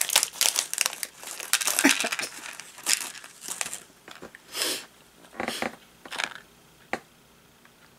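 Plastic packaging crinkling as a bag of heart charms is opened and emptied, dense for the first four seconds, then a few separate short rustles and a single sharp click as the charms are handled in a plastic tray.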